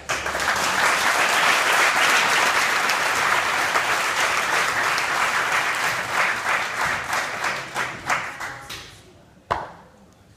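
Audience applause that breaks out suddenly, then thins to a few scattered claps and dies away over about nine seconds. A single sharp knock follows about nine and a half seconds in.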